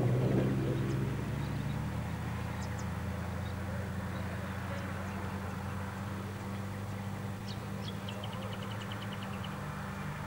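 A steady low hum with scattered high chirps, and near the end a quick even run of about eight chirps.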